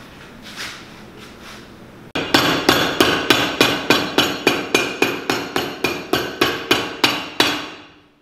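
Cobbler's hammer striking the built-up leather heel block of a boot held upside down on a last. About two seconds in, a steady run of quick blows starts, about four a second, and it stops near the end.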